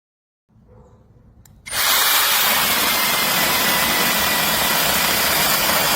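Brushless cordless mini chainsaw on an M18 battery starting abruptly about two seconds in and running at full speed: a loud, steady rushing noise with a faint whine.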